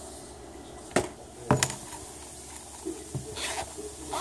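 Handling of earbud packaging and a round zippered carrying case: a sharp tap about a second in, two more taps close together half a second later, and softer rustling near the end.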